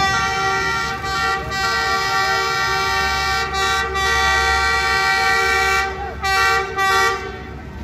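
Diesel locomotive air horn sounding a long chord of several notes for about six seconds, then two short toots near the end. It warns the crowd at a level crossing that a freight train is approaching.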